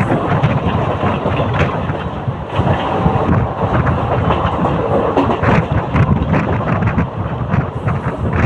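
Mumbai local electric multiple-unit train running, its steel wheels clattering over the rail joints under a steady rushing noise.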